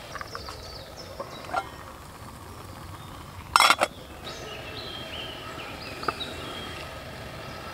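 Small birds chirping and singing throughout, with a short metallic clatter about three and a half seconds in as the lid of a metal mug is handled, and a few light clicks of handling.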